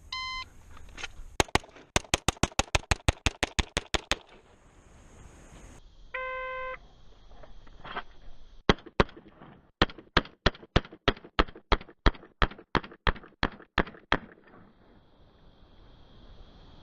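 A shot timer beeps and a 9mm pistol fires a fast string of about fifteen shots. A second timer beep follows, then two spaced shots and a steady run of roughly eighteen more, about four a second.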